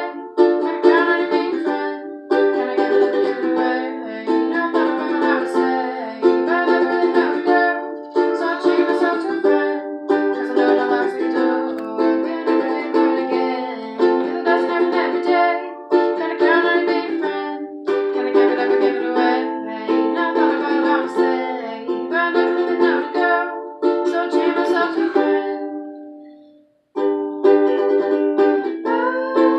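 Ukulele strummed in steady rhythmic chords. Near the end the playing fades out and stops for about a second, then picks up again.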